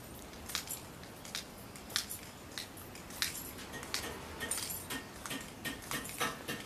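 Faint, irregular clicks and light ticks, a few per second, with a few brief high chirps about halfway through.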